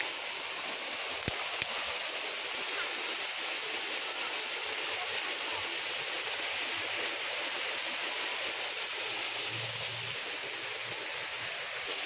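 Steady rush of flowing water from an artificial garden stream and waterfall.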